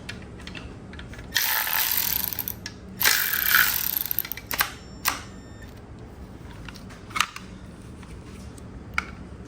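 Hand tool at work loosening small 10 mm engine bolts: two clattering bursts of about a second each, then a few single metallic clicks.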